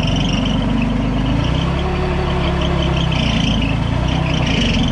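Stand-on mini loader's engine running hard with a hydraulic whine as the machine strains to drive itself out of soft mud where it has sunk onto its frame. The engine note shifts about a second and a half in as it loads up.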